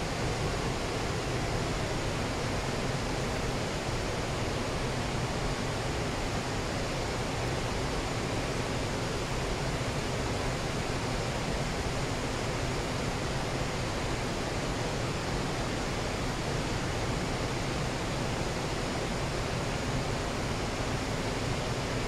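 The Falls of Clyde, a waterfall on the River Clyde running heavy with peat-brown water, giving a steady, unbroken rush of falling and churning water.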